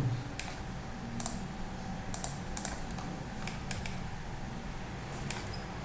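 Irregular clicking of computer keys and mouse buttons, about ten scattered clicks with several in quick pairs, over a faint steady electrical hum.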